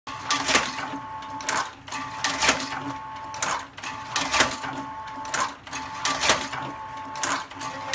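Semi-automatic gyoza dumpling-making machine running: a steady motor hum with a sharp mechanical clack about once a second, one for each dumpling it presses and folds.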